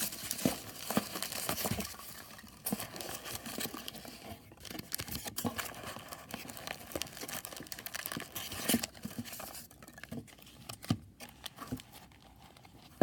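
Packaging of a trading-card box being torn open and crinkled: uneven rustling and tearing with many small clicks and taps, busiest at the start and again in the middle, dying down near the end.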